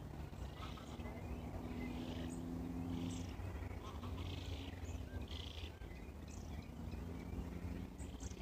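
Footsteps at an even walking pace, about one step every second, over a low steady hum that drifts slightly in pitch.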